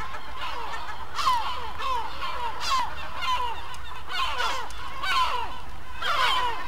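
Gulls calling: a string of short cries that slide down in pitch, about one or two a second, several overlapping from about four seconds in.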